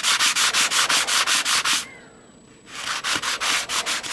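Sanding of wooden jigsaw puzzle pieces: a rhythmic rasping at about seven strokes a second, which stops for a moment midway and then starts again.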